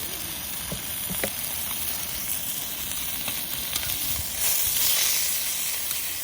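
Food sizzling and frying on a cauldron-lid (sotttukkeong) griddle, a steady hiss that swells louder for about a second partway through.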